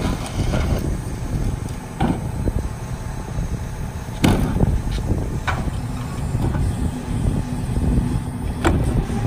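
Freightliner M2 rear-load garbage truck's diesel engine idling, with sharp clunks of a plastic garbage cart knocking against the steel tipper as it is hooked on, the loudest about four seconds in. From about six seconds a steady low hum joins the engine as the hydraulic cart tipper lifts the cart.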